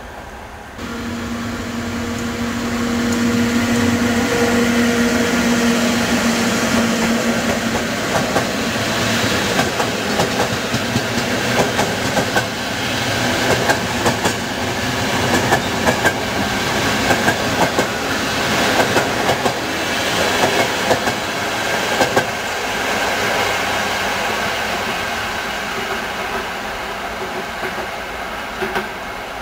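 Electric-hauled passenger train of coaches passing close by, with a loud steady rumble. A steady low tone sounds for the first several seconds, and from about eight seconds in the wheels clack over the rail joints in a long quick run of clicks that eases off after about twenty-two seconds.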